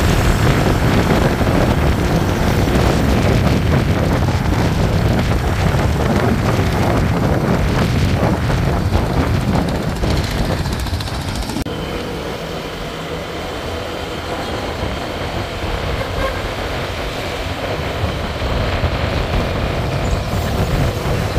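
A motor vehicle running, with a steady rumbling road and engine noise. The noise eases a little partway through and builds again near the end.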